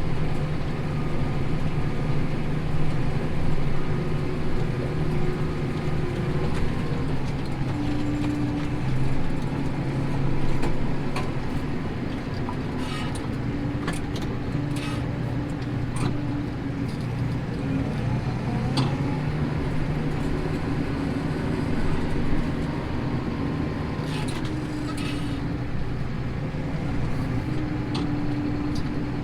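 Tractor engine running steadily under load while pulling a plough, with a steady hum and a higher tone that fades in and out. Occasional light clicks and knocks sound over it.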